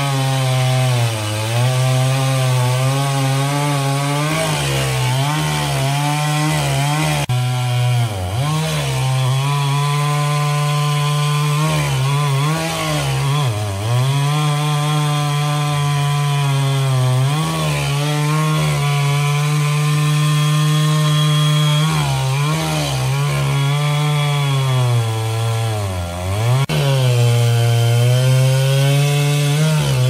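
Two-stroke chainsaw running at full throttle as it cuts into a large log, its engine pitch sagging briefly a few times as the chain bites harder under load.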